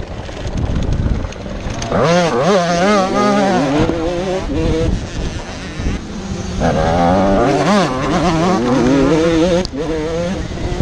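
85 cc two-stroke motocross bike engine, heard on board, revving hard and quickly up and down with the throttle. It comes on strong about two seconds in and again past the middle, with a lower rumble between.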